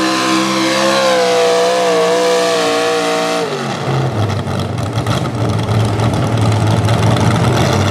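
Modified small-block V8 pulling truck at full throttle, dragging a weight sled, its pitch wavering and sagging under the load. About three and a half seconds in the throttle comes off and the engine drops abruptly to a low, rough idle as the truck stops.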